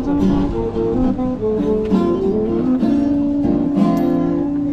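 Acoustic guitar music, plucked and strummed notes following one another.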